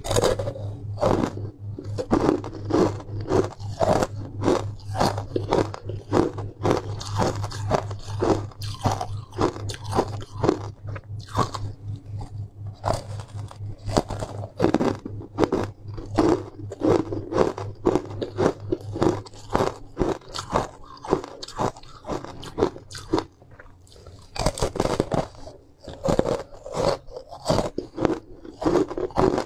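Close-up crunching and chewing of a powder-coated block of ice, bitten off and crunched over and over, with a brief lull about three-quarters of the way through.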